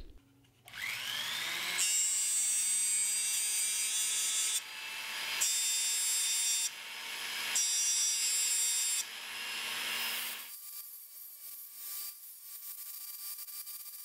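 Handheld rotary tool with an abrasive disc spinning up with a rising whine, then running with a steady high whine while cleaning and sanding the freshly soldered metal of a miniature cage; its sound drops away briefly twice. After about ten seconds the whine stops and only faint scratchy rubbing remains.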